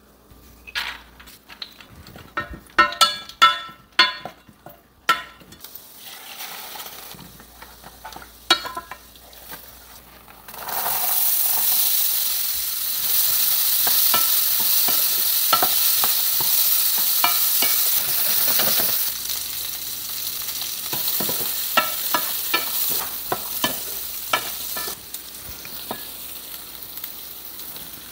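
A few sharp metal clinks against a stainless steel pan, then about ten seconds in a loud sizzle starts suddenly as boiled chickpeas fry in tempering oil, stirred with a wooden spatula that scrapes and taps the pan. The sizzle eases off over the last few seconds.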